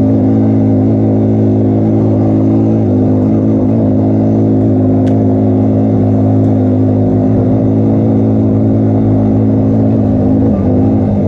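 ATV engine running at a steady, unchanging speed. There is a single sharp click about five seconds in, and the engine note wavers slightly near the end.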